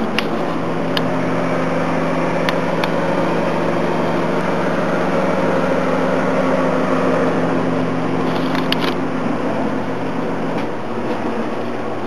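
A steady mechanical hum with a few low tones under a broad rushing noise; some of the tones drop away near the end. A few light clicks sound over it.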